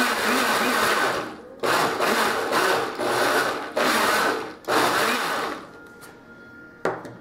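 Personal countertop blender chopping a thick, chunky seafood-and-water mix: the motor runs steadily at first, then is pulsed in about four short bursts. A single short knock comes near the end as the jar is handled on the base.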